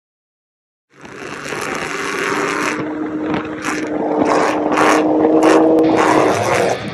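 Heavy wind buffeting on the microphone of a moving vehicle, with a steady engine drone underneath, starting about a second in and growing louder. The wind noise swamps the recording, and brief crackling gusts punch through it.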